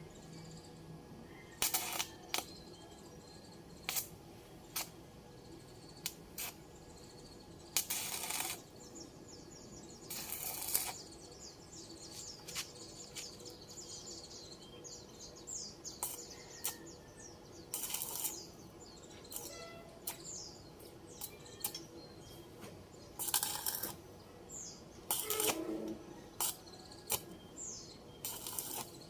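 Stick welding in short goes: crackling bursts of about half a second, several times over, among many sharp metallic clicks and taps. Birds chirp in the background.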